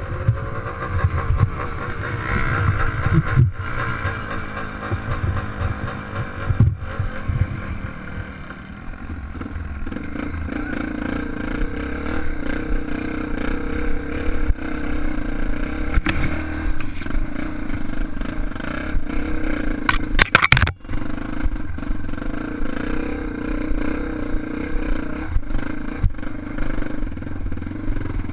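Trail motorcycle engine running steadily under way, its pitch shifting with the throttle in the first few seconds. A short, loud crackle comes about twenty seconds in.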